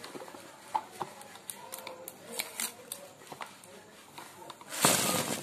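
Clear plastic sweet tub being handled: light clicks and taps of the plastic, then a loud rasping burst of about half a second near the end as the tub's seal or lid is worked.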